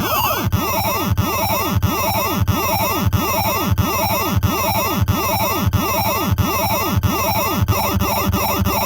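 Error Instruments Data Synth making glitchy electronic noise: a buzzy tone swooping down and back up about one and a half times a second, the cycle quickening near the end.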